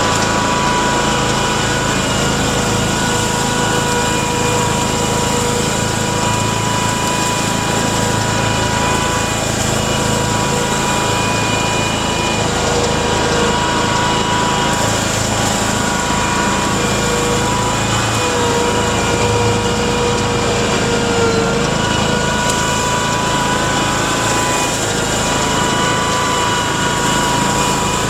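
Mudd-Ox 8x8 amphibious ATV's engine running steadily as it drives on Adair tracks, heard on board, with a steady whine over a low rumble and a slight waver in pitch a little past the middle.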